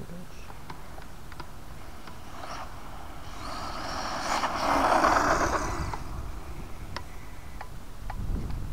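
Electric RC 4x4 truck with a 3500kv brushless motor running on asphalt: the motor whine and tyre noise swell to a peak about five seconds in, then fade. Scattered light clicks are heard throughout.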